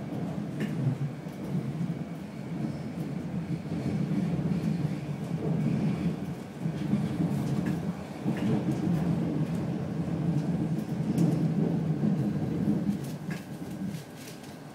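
Madrid Cercanías electric commuter train rumbling along the track, heard from inside the carriage, with a few sharp clicks from the wheels on the rails. The rumble drops off near the end.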